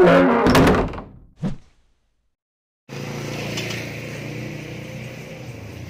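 A short intro sound effect that fades out within about two seconds and is followed by a second of dead silence. Then steady street ambience takes over, with a low hum of distant traffic.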